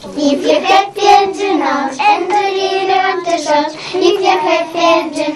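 Young girls singing a melody.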